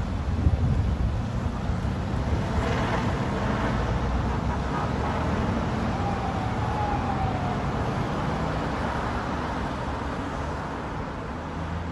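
Road traffic noise: a steady rumble of passing vehicles.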